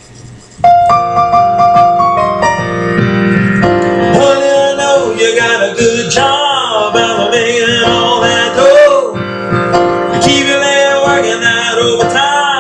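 Electronic keyboard playing a song's instrumental intro: held chords come in suddenly about half a second in, then a melody with sliding, wavering pitches plays over them.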